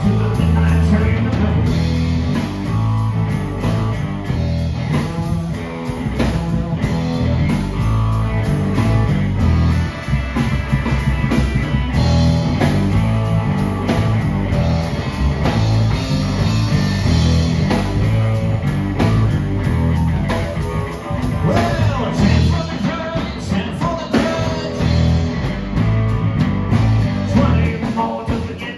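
Live blues band playing: electric guitar and bass guitar over a drum kit keeping a steady beat.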